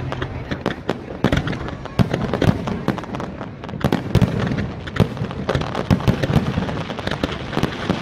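Aerial fireworks shells bursting in a display: sharp bangs several times a second, close together and irregular.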